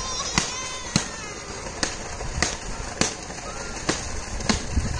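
A series of sharp knocks or slaps, about one or two a second, over a steady low rumble.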